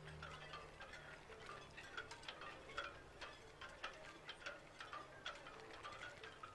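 Faint, irregular tinkling of chime-like notes, a few each second.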